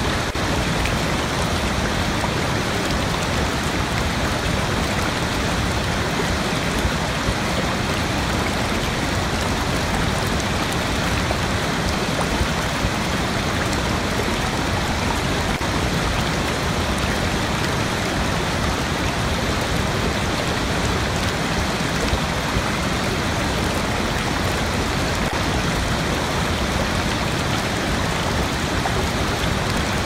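Large waterfall: a steady, unbroken rush of falling water.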